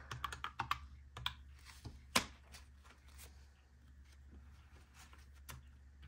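Plastic keys of a desktop calculator pressed in a quick run of clicks, with one louder tap about two seconds in, then a few fainter, sparser taps.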